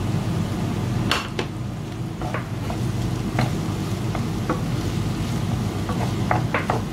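Wooden spatula stirring diced bell peppers and onions frying in a non-stick pan, with scattered knocks and scrapes of the spatula against the pan that come faster near the end.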